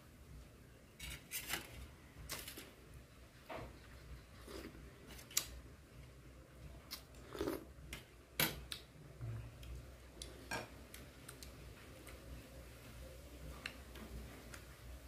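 Chewing and crunching of fresh herbs and boiled beef tendon, with irregular sharp clicks, including a metal spoon knocking against a metal tray about eight seconds in.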